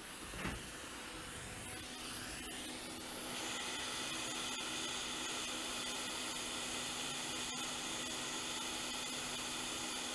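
Quick 861DW hot air rework station blowing a steady hiss of hot air onto a surface-mount capacitor to melt its solder for removal. The hiss gets louder about three seconds in, with a faint steady hum underneath.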